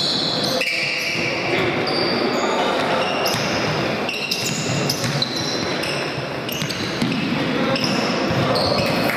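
Futsal game in a sports hall: the ball thuds on the wooden floor and is kicked, players shout and call, and there are short high squeaks, all echoing in the hall.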